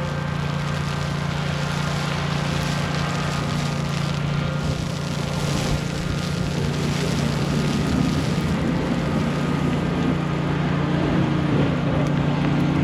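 Steady low rumble of city traffic in a snowstorm, with wind on the microphone. From about eight seconds in, faint wavering tones rise and fall over the rumble.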